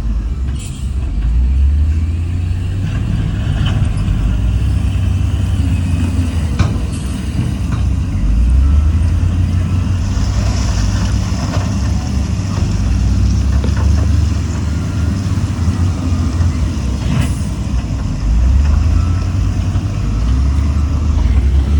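Heavy diesel earthmoving machinery, a bulldozer and dump trucks, running under changing load, the deep engine rumble swelling and easing. There are a few sharp metallic knocks, and a hiss lasts several seconds around the middle.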